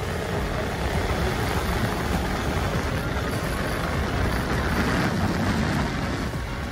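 Motorcycle riding along, heard through a helmet-mounted microphone: a steady rush of wind and road noise with the engine underneath, no clear pitch or revving.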